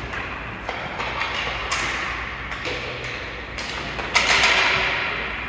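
Ice hockey play: a series of sharp, irregular knocks of sticks, puck and boards over a steady hiss, with a louder burst of noise about four seconds in.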